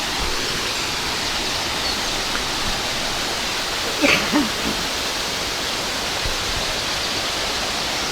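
Linhope Spout, an 18-metre waterfall, pouring into its plunge pool: a steady rush of falling water. A brief voice cuts in about four seconds in.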